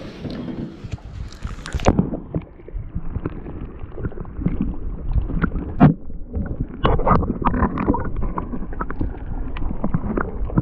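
Wind buffeting the microphone and water sloshing against a small aluminium boat's hull, with scattered knocks and clatter on the boat.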